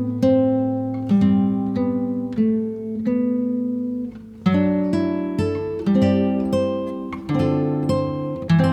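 Acoustic guitar music: plucked chords and picked notes that ring and fade, with a brief pause about four seconds in.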